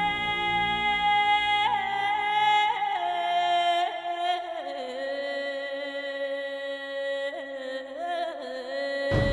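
Background music: a long, held melody line that steps down in pitch through a few sustained notes, with the low accompaniment dropping out about four seconds in.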